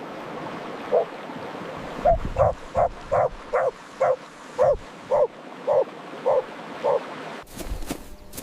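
An animal giving a series of about a dozen short, yelping barks, roughly two a second, that stop about a second before the end.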